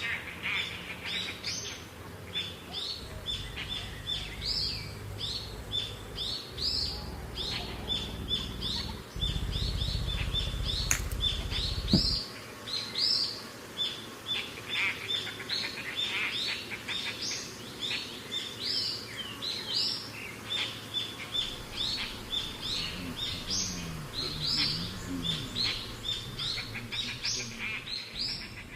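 A flock of small songbirds chirping throughout, with short high calls repeating several times a second and overlapping. A low rumble runs under them from about 3 s to 12 s and ends with a sharp tap.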